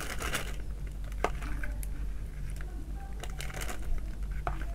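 Metal spoon scooping wet, mushy bait dough out of a plastic bowl into a thin plastic bag: irregular squelches, spoon scrapes and bag crinkling, with a sharp spoon click about a second in.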